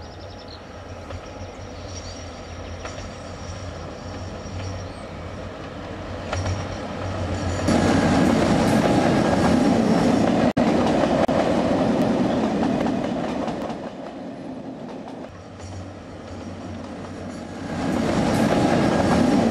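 Model electric locomotive running along model track: a steady motor hum with the rattle of wheels on the rails. It grows much louder about eight seconds in as the locomotive passes close, drops back, then swells again near the end.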